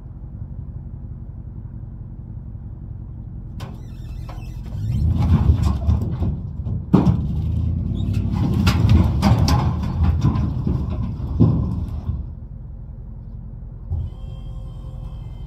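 A load of firewood logs sliding and tumbling out of a tipping dump-trailer bed, a dense clatter of wooden knocks and thuds from about four seconds in until about twelve seconds. Under it runs the steady low hum of the motor raising the bed.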